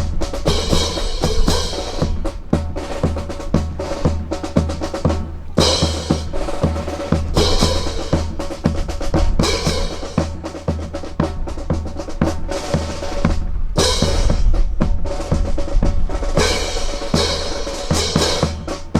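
Music with a busy drum beat of bass drum and snare, with sustained instrument tones over it, accompanying a rifle drill display.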